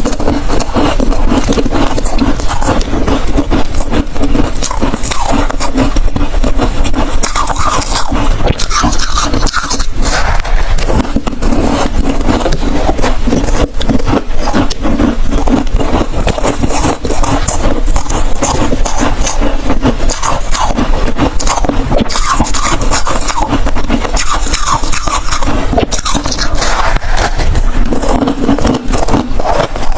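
Hard freezer ice being bitten and chewed close to the microphone: loud, continuous crunching and crackling, with dense rapid cracks throughout.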